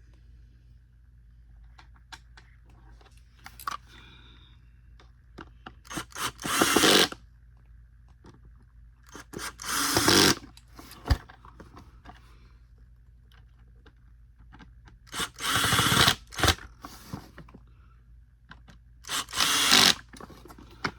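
Power screwdriver driving four screws into the vacuum's plastic housing: four short whirring runs of about a second each, a few seconds apart, with light handling clicks between.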